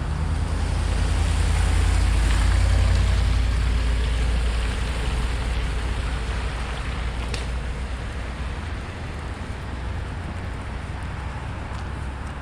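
A vehicle passing on the street, its low engine rumble and tyre hiss swelling to a peak about two to three seconds in and then slowly fading away.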